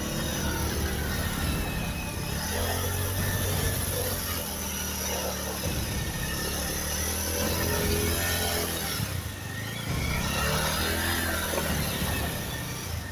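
Bajaj Pulsar 180's single-cylinder engine revved up and down several times while its rear tyre spins in wet mud, the bike struggling for grip.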